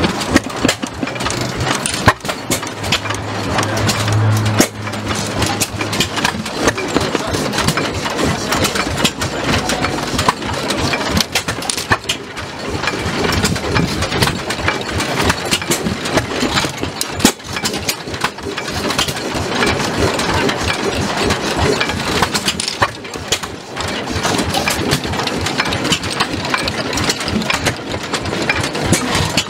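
Vintage engine with large spoked flywheels, mounted on a steel-wheeled cart, running steadily with a quick, even beat of firing strokes.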